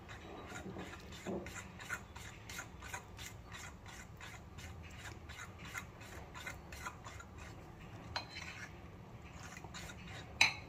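A spoon beating thick chocolate biscuit-cake batter in a glass bowl: soft, rhythmic scraping strokes, about three a second, with one sharper click near the end.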